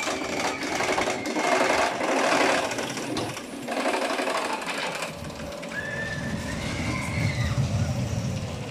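Zamperla family roller coaster train clattering along its steel track, a fast mechanical rattle, with a low rumble coming in about two-thirds of the way through as the train runs past lower down.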